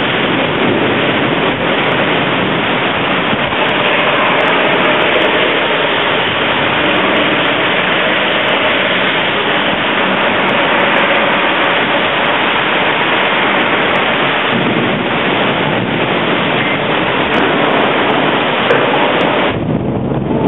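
Torrential wind-driven rain in a storm, with strong wind, as one steady loud rush. The rush thins briefly near the end.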